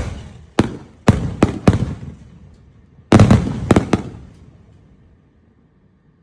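A 36-shot big-bore firework cake's last aerial shells bursting: a string of sharp bangs, several in the first two seconds and another cluster about three seconds in, each with a fading tail. The shots die away about five seconds in as the cake finishes firing.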